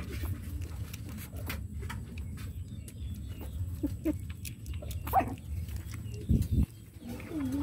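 Newborn puppy suckling from a small feeding bottle: quick, wet sucking clicks, with a few short puppy squeaks and a low thump about six seconds in. A puppy starts to whine near the end.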